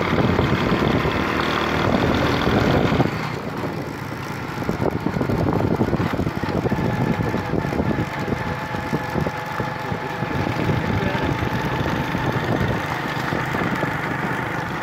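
Motor vehicle engine running steadily while driving, with frequent small knocks and rattles.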